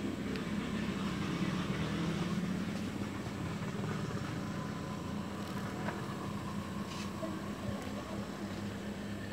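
A steady low engine hum, a little louder in the first couple of seconds, with a few faint ticks.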